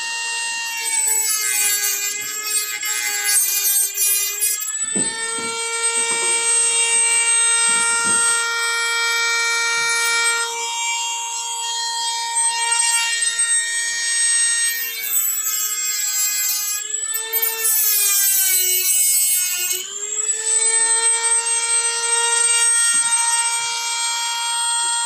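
Dremel rotary tool with a cutoff wheel whining at high speed. Twice its pitch sags for a few seconds and a gritty grinding joins in as the disc bites into the steering wheel's hard plastic rim, cutting the cracks wider so they can be filled.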